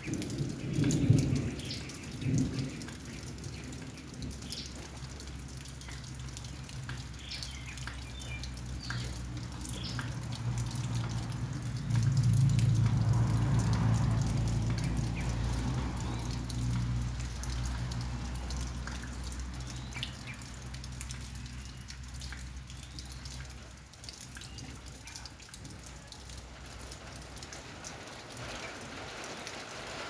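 Thunder: two short low rumbles near the start, then a long roll that swells about twelve seconds in and slowly fades over about ten seconds. Scattered raindrops and drips tick over it.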